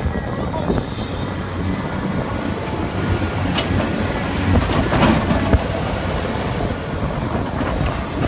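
Tracked excavator's diesel engine running steadily under load as it digs and swings. Around the middle, a bucketful of dirt and rocks is dumped onto the spoil pile with a burst of thuds and clatter.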